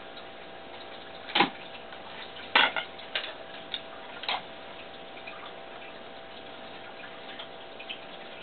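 A handful of sharp clicks and crackles in the first half, the loudest two about a second apart, over a steady background hiss with a faint hum.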